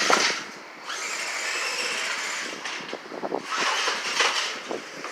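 Toy RC truck's electric motor whining as it drives, its wheels spinning and scrabbling for grip with clattering knocks. The truck has poor traction.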